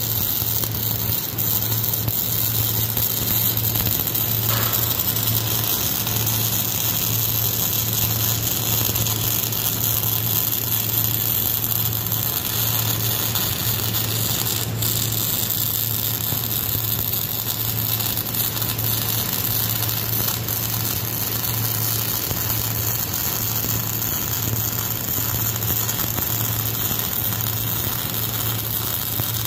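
Wire-feed welding arc running in one long continuous weld on heavy steel plate, steady, with a low hum underneath.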